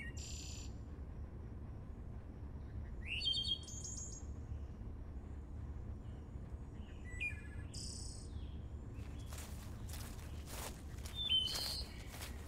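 Songbirds singing in four short, separate chirping phrases a few seconds apart, over a steady low outdoor rumble. From about nine seconds in, a run of quick rustling footsteps through the plants.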